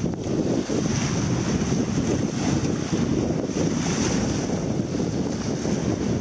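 Small waves breaking and washing up on a sandy shore, with steady wind rumbling on the microphone.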